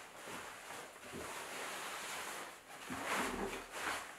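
Cotton fabric rustling as a long organic cotton garment bag and the dress inside it are gathered and smoothed by hand, in a few soft swells with the strongest about three seconds in.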